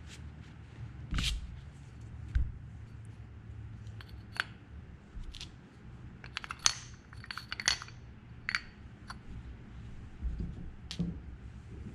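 Small metal parts and tools being handled on a workbench: scattered clicks and short ringing clinks, a cluster of them in the middle, over a steady low hum.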